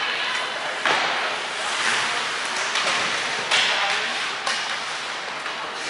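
Ice hockey play in a rink arena: a steady hiss of skates on the ice with several sharp knocks of puck and sticks, the loudest about a second in, echoing in the hall. Spectators talk quietly underneath.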